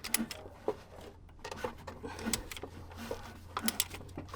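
Irregular metallic clicks and knocks as the 1.9 TDI engine is turned over by hand with a wrench to check that the new dual mass flywheel spins freely, over a steady low hum.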